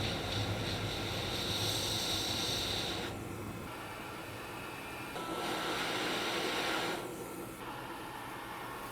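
Hot air rework station blowing a steady hiss of air, in two spells (about three seconds, then about two) with a fainter rush between them.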